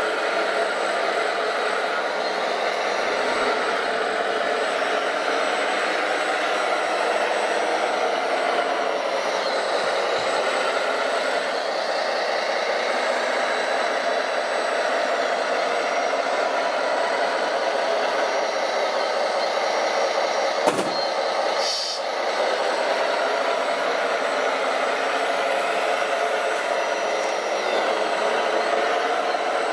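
Radio-controlled model construction machines running: a steady whirring whine from their small electric motors and hydraulic pump, with a single sharp click about two thirds of the way through.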